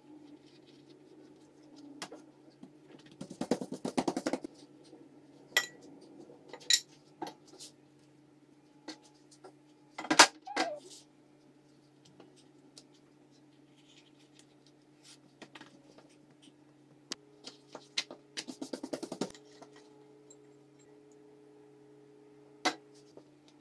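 Countertop handling sounds over a faint steady hum: scattered clicks and clinks, with a sharper clink about ten seconds in. Twice, about three and eighteen seconds in, there is a short burst of quick rattling ticks from a salt shaker being shaken over the spinach-and-curd filling.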